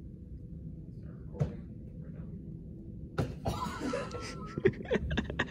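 Room hum with a sharp knock about three seconds in, then low voices or laughter and a quick run of light knocks near the end.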